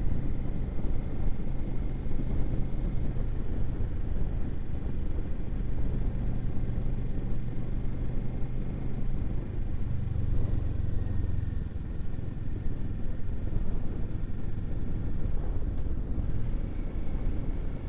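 Motorcycle engine running steadily under way, with wind and road noise.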